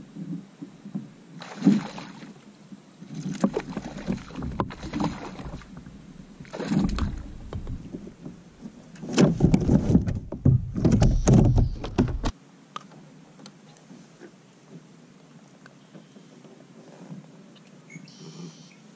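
Water splashing and knocks against a fishing kayak's hull while a largemouth bass is fought and landed, in irregular bursts with a low rumble. It is loudest a little past halfway and cuts off suddenly, leaving faint lapping and small clicks.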